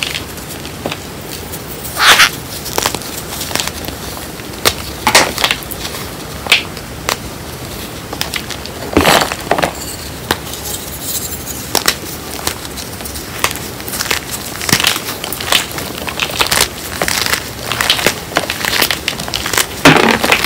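Bare hands crushing and crumbling chunks of reformed gym chalk (calcium and magnesium chalk pressed with cornstarch): irregular dry crunches with a few louder cracks, and a denser run of crunching near the end.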